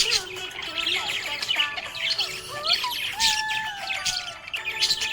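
Several budgerigars chirping and warbling together: a dense run of quick, high chirps, woven with short sliding whistles and longer held notes.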